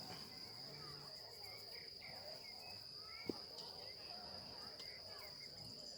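Insects trilling in a steady, high-pitched, unbroken drone, with one short sharp click a little past halfway through.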